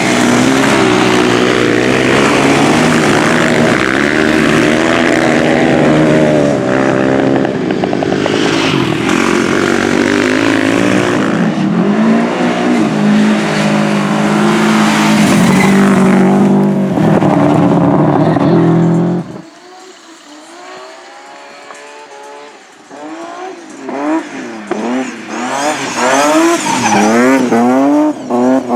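Several racing engines running hard together at high revs, a dense mix of engine notes. About 19 seconds in the sound drops off suddenly to a distant hum; a few seconds later engines are heard again, revving up and down over and over with rising and falling pitch and growing louder near the end.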